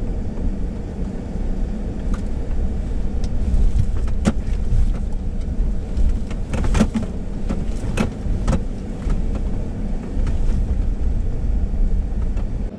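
Ford F-150 Lightning electric pickup driving slowly over a rough dirt trail, heard from inside the cab: a steady low rumble from tyres and suspension, with several sharp knocks and rattles as it goes over bumps between about four and nine seconds in.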